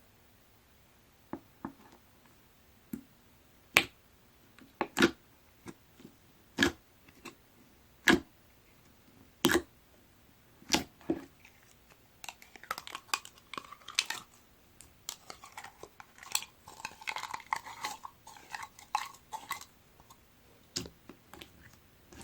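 Clear slime mixed with small plastic deform blocks being squeezed and poked by hand: single sharp clicks and pops about once a second at first, then a dense run of crackling clicks from about halfway through, easing off near the end.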